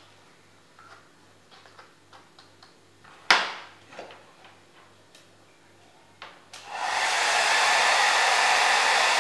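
Small faint clicks, then a sharp knock about three seconds in. Near the end an electric hair dryer switches on and blows with a loud, steady rushing hiss.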